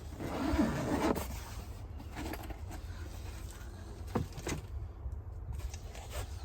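Cardboard box being opened and handled, with cardboard scraping and creaking in the first second, then two light knocks a little after four seconds in.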